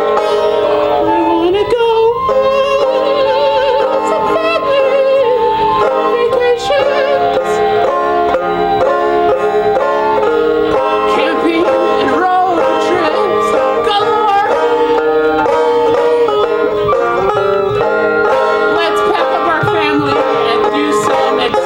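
Live band music: plucked string instruments playing a song with a singing voice over them.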